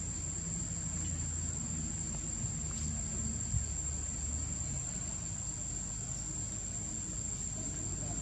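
Steady high-pitched drone of insects, unbroken throughout, over a low rumble, with one small knock about halfway through.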